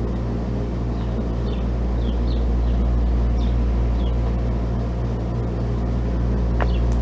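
Steady low rumble of a running vehicle engine with a constant hum, and faint short high chirps repeating about every half second.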